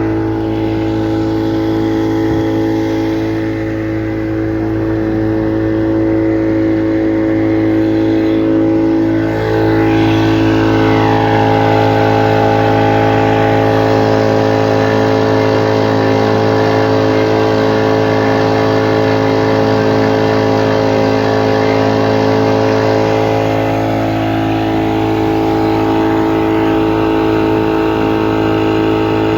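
Motorboat engine running steadily under way, with a brief dip in pitch and loudness about nine seconds in.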